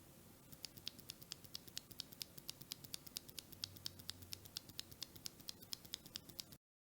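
Tecsee Mango Ice tactile mechanical keyboard switch (UHMWPE top housing, nylon bottom housing, UPE stem) being pressed and released rapidly, giving a quick, even run of clacks, about six a second, that cuts off suddenly near the end.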